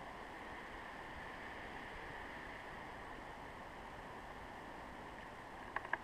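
Steady hiss, then two sharp taps near the end as a woodpecker pecks at a suet cake in a wire cage.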